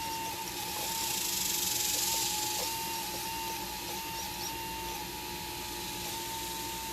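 Hydraulic pump of an RC Liebherr 954 scale excavator running with a steady whine that sags briefly in pitch several times as the hydraulics take load. A louder hiss lasts about two seconds, starting about a second in.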